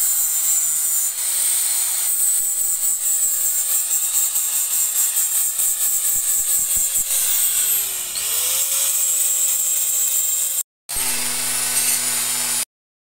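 Handheld electric angle grinder running against a metal flagpole pipe: a loud hissing grind over a steady motor whine. About eight seconds in the motor's pitch sags under load and comes back up. After a short break near eleven seconds it runs again briefly with a lower hum, then cuts off suddenly.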